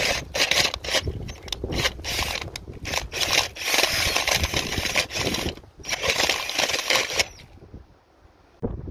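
Cordless drill turning a bulb auger down into stony soil, the earth and stones crunching and scraping unevenly; it stops about seven seconds in.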